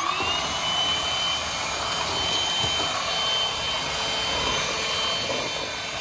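Tamong cordless stick vacuum switching on: its motor whine rises in pitch for a moment, then settles into a steady high whine over a rush of air as it sucks up wood chips.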